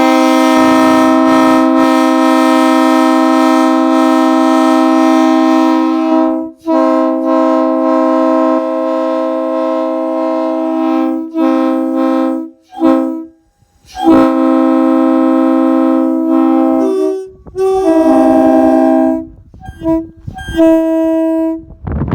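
Air-powered three-chime train horns (a Leslie RSL-3L-R and a Nathan K3LA) blown from a hand valve: loud chords in several long blasts broken by brief gaps, the chord changing pitch about 17 s in, then a few shorter toots near the end.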